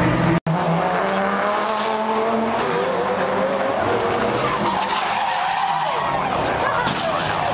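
A race car's engine running hard as it passes close by, with tyres squealing and skidding. The sound cuts out for an instant about half a second in.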